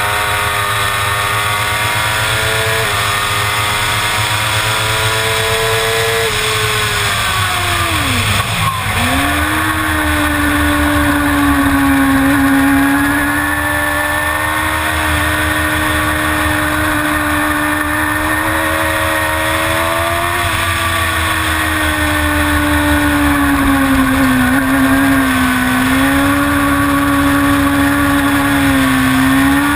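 Suzuki GSX-R 750 inline-four racing engine at high revs, stepping up through two upshifts early on, then the note drops sharply and climbs back about eight seconds in before holding high with small dips. Steady wind rush on the microphone throughout.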